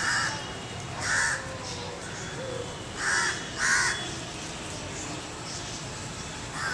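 Crow cawing: four short caws, one at the start, one about a second in, and two close together around three and a half seconds in, over a steady outdoor background.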